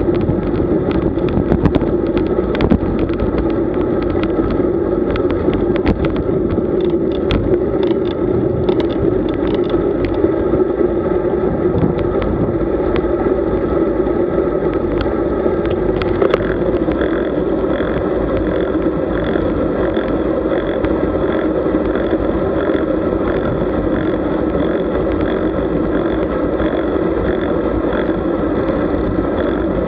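Road bicycle riding: steady rush of wind and rumble of tyres on the road, heaviest in the low end. From about halfway through, faint ticks come about once a second.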